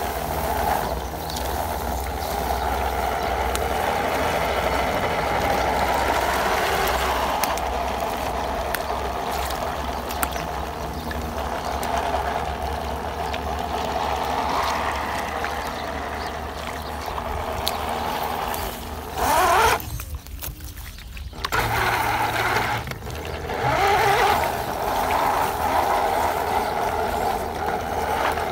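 ZP 1001 RC crawler's electric motor and gears whining as it drives, pulling a loaded trailer through shallow muddy water, with water splashing and churning around the tyres. The whine rises about two-thirds through, then the sound cuts out for a second or so before resuming.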